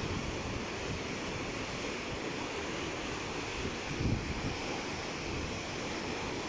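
Muddy floodwater rushing and churning down a rocky stream bed, a steady rushing noise. Low wind rumble on the microphone comes and goes, strongest about four seconds in.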